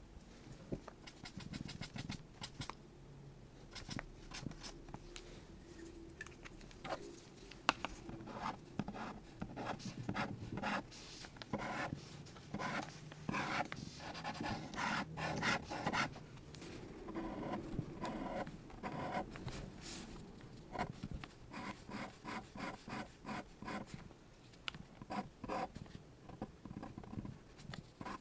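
Fineliner ink pen scratching across Bristol paper in quick repeated strokes as lines are drawn. The strokes come in fast runs through the middle and thin out toward the end.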